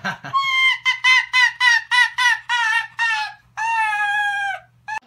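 A pet white fox calling: a quick run of about ten short, high-pitched cackling calls, about four a second, then one longer drawn-out call lasting about a second.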